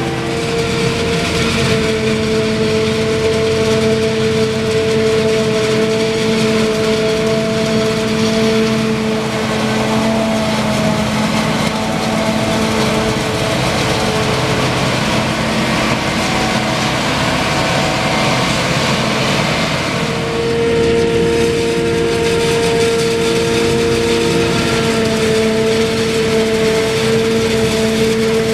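Claas Jaguar 840 self-propelled forage harvester chopping maize at working speed, its engine and chopping gear running loudly and steadily with a constant humming whine, together with the tractor drawing the silage wagon alongside. The pitch shifts slightly about two-thirds of the way through.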